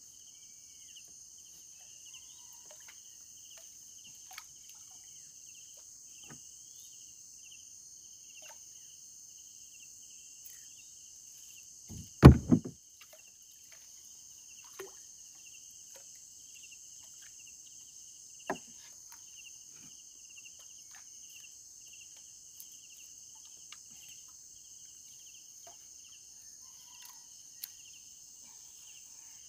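Steady outdoor insect chorus, with a pulsing trill repeating about once a second over a high continuous hum. A single loud thump comes about twelve seconds in, with faint scattered clicks elsewhere.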